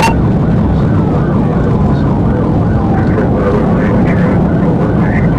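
Police cruiser's steady road and engine noise at speed, with a siren wailing up and down faintly through it. A sharp click comes right at the start.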